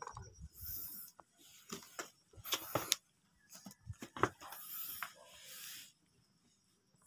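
A freshly landed small fish flapping on wooden planks: a string of irregular sharp taps and slaps against the boards, with rustling hiss between them, dying away in the last second or so.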